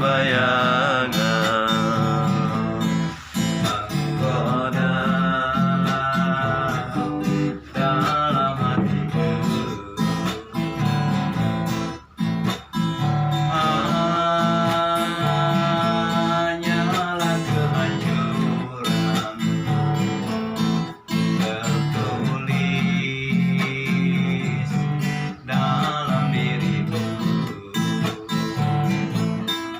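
Instrumental music led by acoustic guitar, with strummed chords and a melody line playing above them.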